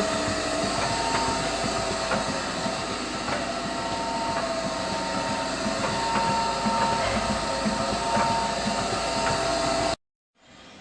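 AMS Galaxy milking robot's air-driven machinery running: a steady hissing hum with two steady tones and a few faint scattered clicks, cutting off abruptly near the end.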